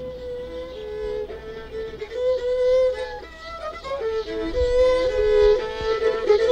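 Music: a slow melody on a bowed string instrument, held notes stepping up and down in pitch, growing louder.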